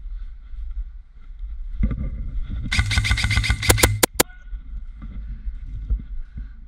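Airsoft electric rifle, a Krytac M4 Trident SPR Mk2, firing a rapid full-auto burst about three seconds in. The motor and gearbox cycle with a steady hum for over a second, and four sharp cracks follow. Low rustling of gear and movement fills the rest.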